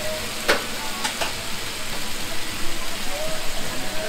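Marinated chicken pieces sizzling in oil on a flat-top griddle, a steady hiss. Three short, sharp clicks sound between about half a second and a second and a quarter in.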